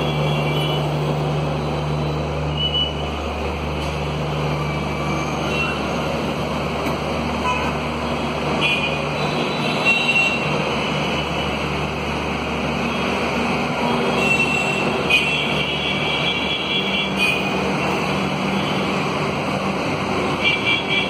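Passenger coaches of a departing express train rolling past: a steady rumble of wheels on rails, with short high-pitched squeals now and then.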